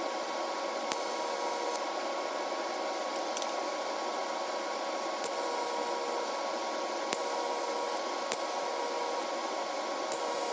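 Welding torch running, a steady hiss with a faint whine and a few small ticks, while the corners of milled steel tube ends are tack-welded by fusion.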